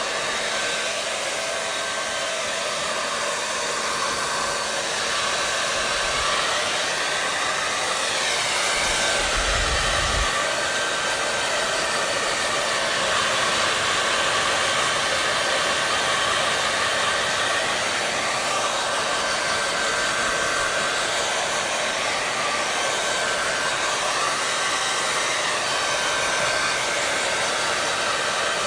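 Hair dryer running continuously: a steady rush of blown air with a faint constant whine from its motor.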